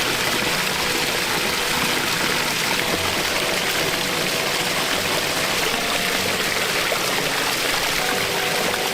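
A pond waterfall running, with a steady rush and splash of water. Soft background music plays underneath.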